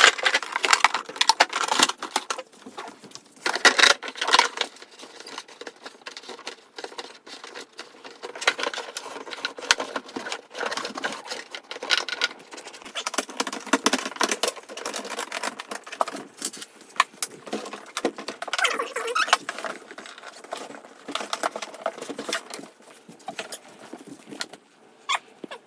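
Handling noise as a BiPAP machine and its breathing-circuit tubing are set into a cooler: irregular rustling, scraping and small clicks and knocks.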